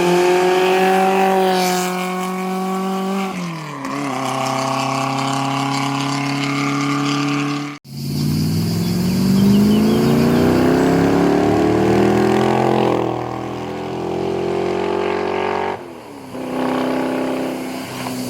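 Historic racing car engines running hard under load, in three separate passes joined by abrupt cuts about 8 and 16 seconds in. In the first the revs hold high, then drop sharply and settle. In the second the engine climbs steadily in pitch as the car accelerates.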